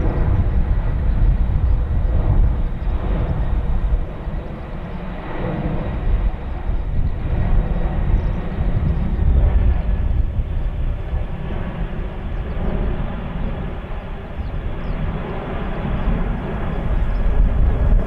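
Boeing 767 jet engines at go-around power as the airliner climbs away overhead after an aborted landing, a continuous rumble. Gusty wind buffets the microphone, so the level swells and dips.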